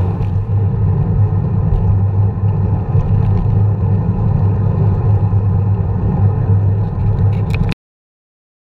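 Steady rumble of wind and road vibration on a bicycle-mounted camera's microphone while riding on pavement, cutting off abruptly near the end.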